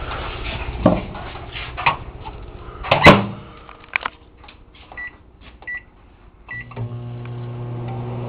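Microwave oven being set going: a few knocks and a loud clunk about three seconds in, three short keypad beeps, then the oven starts running with a steady hum.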